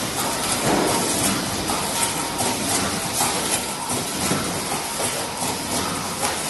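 Automatic cartoning machine running: a steady mechanical clatter of repeated knocks and clicks over a continuous hiss.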